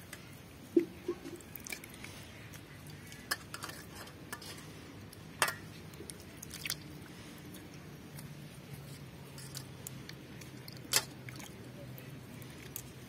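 Tomatoes being washed by hand in a steel bowl of water: scattered splashes and sharp knocks, a second or more apart, as each tomato is dunked and set down.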